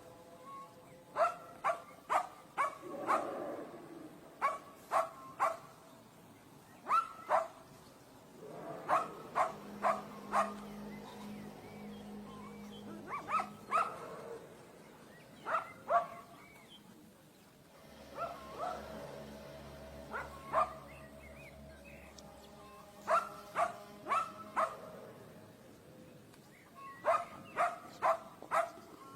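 A dog barking in short volleys of two to four barks, repeated every few seconds.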